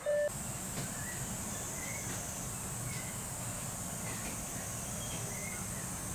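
Outdoor ambience: a steady high-pitched insect-like buzz with short chirps about once a second over a low hum, after a brief tone right at the start.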